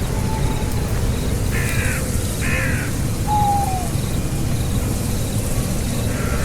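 Two short, harsh calls from a bird, about a second apart, with a couple of short falling whistle notes around them, over a steady low rumble.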